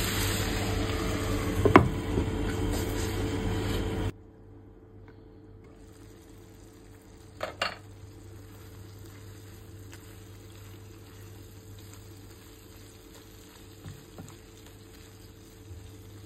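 Shrimp and bell pepper sizzling in a nonstick frying pan as they are stirred with a silicone spatula, with one sharp knock of the spatula against the pan about two seconds in. About four seconds in the sizzle drops away suddenly to a much quieter hiss, broken by a few soft knocks of the spatula.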